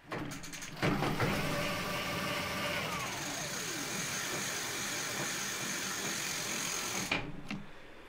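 Luna BBSHD mid-drive motor on a fat e-bike running under the thumb throttle, spinning the rear wheel up to about 10 mph with a steady whine. The motor starts about a second in, holds steady, and cuts off about seven seconds in when the throttle is let go, its sound dying away over the next half second or so.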